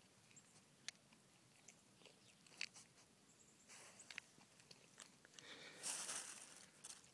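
A whitetail fawn faintly crunching and chewing apple pieces taken from a hand, with small scattered clicks. A short scuffling noise, the loudest sound, comes about six seconds in.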